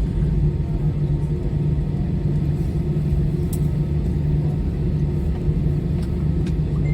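Steady low rumble and hum of an Airbus A320 heard from inside the cabin as it taxis in after landing, engines at idle.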